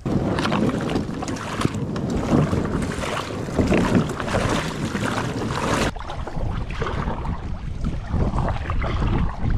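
Kayak out on the river: water splashing and washing with uneven surges, typical of paddle strokes, with wind buffeting the microphone.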